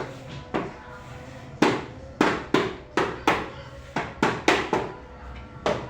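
Hammer blows on woodwork: about a dozen sharp strikes at an uneven pace, coming faster in the middle.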